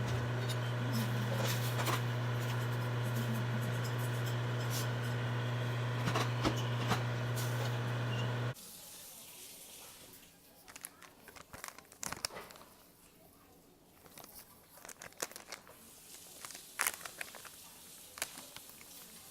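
A low, steady appliance hum that cuts off suddenly about eight and a half seconds in, followed by quieter scattered clicks and crinkling of packaging or food handling.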